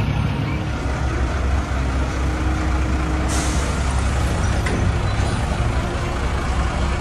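Dense city traffic: a steady low rumble of idling and crawling car and bus engines. A sudden hiss cuts in a little over three seconds in and fades within about a second.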